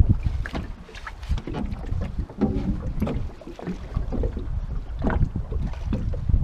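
Wind buffeting the microphone as a steady low rumble, with scattered knocks and clunks in a small aluminum fishing boat as a landing net is handled.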